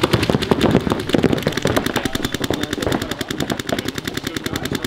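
Paintball markers firing in rapid volleys, several guns at once. The shots come unevenly at first, then settle into a fast, even stream after a second or so.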